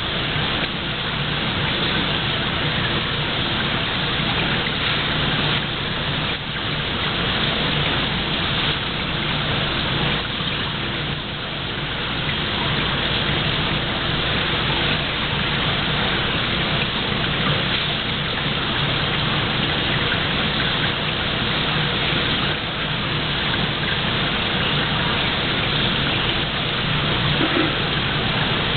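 Steady rush of running water into a seawater tank, with a low even hum underneath.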